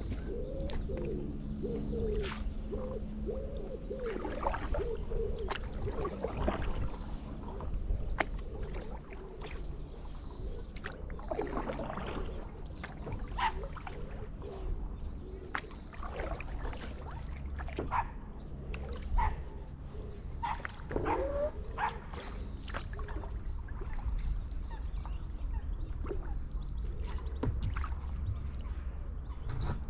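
Paddle strokes splashing in canal water, with birds calling on and off and wind rumbling on the microphone. A run of wavering calls comes in the first few seconds.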